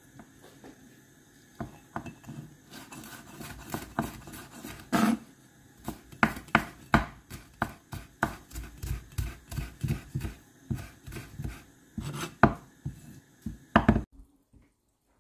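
Chinese cleaver chopping fresh red chillies on an end-grain wooden chopping board: irregular knocks of the blade on the wood, a few each second. They start a couple of seconds in and stop suddenly near the end.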